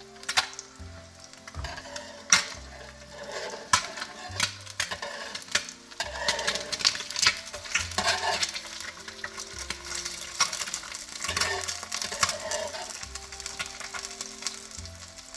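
Food frying and sizzling on a hot Mainstays MS-GRD20 electric griddle set to 400°F, a steady crackle with several sharp clicks or taps. Background music with a steady bass runs underneath.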